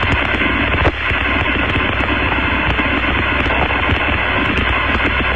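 Steady hiss of radio static on the Apollo 11 air-to-ground voice link, an open channel with no one talking, with scattered faint clicks.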